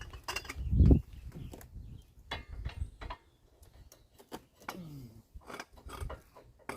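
A low thump about a second in, then scattered light knocks and clicks as tools are handled around the truck's brake caliper.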